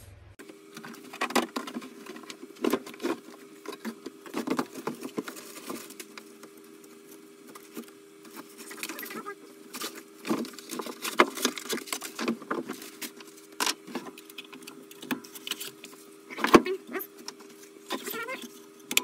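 Irregular clicks, knocks and rustles of hands working a bench belt-and-disc sander to change its belt, ending with the abrasive sanding belt being pulled off the rollers. A faint steady hum runs underneath.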